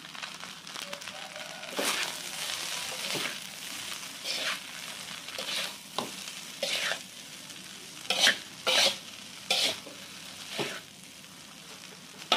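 Metal spatula scraping and tossing rice vermicelli in a wok over a steady sizzle of frying. Sharp scrapes come at irregular intervals, about every second, and are loudest about eight to nine seconds in.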